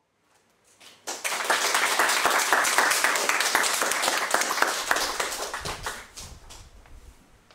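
A small audience applauding, starting about a second in and dying away near the end.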